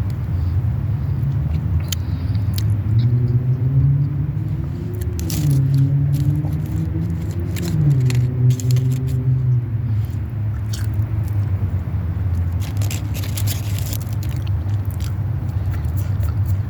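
Chewing and biting into food close to the microphone, with sharp crunchy clicks over a steady low rumble. A pitched hum rises and falls from a few seconds in until about ten seconds in.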